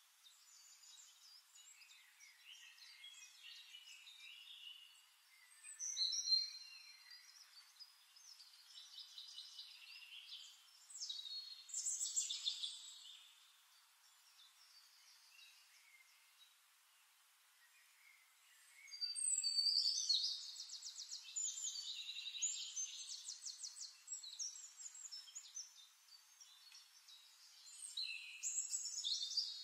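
Small birds chirping and trilling in bursts of a few seconds, loudest about six seconds in, around twelve seconds, from about nineteen to twenty-four seconds, and near the end, with quieter stretches between.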